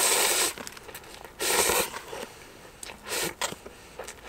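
A person slurping instant ramen noodles off chopsticks: three short, noisy slurps, at the start, about a second and a half in, and about three seconds in.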